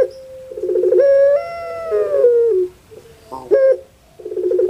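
Female puter pelung (ringneck dove) cooing in its rhythmic 'crying' call: a quick rolling coo runs into one long held coo that falls away at its end, then a short note, and the next rolling coo begins near the end.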